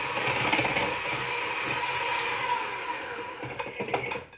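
Electric hand mixer running steadily, its beaters whipping eggs and honey in a glass bowl; the motor stops near the end.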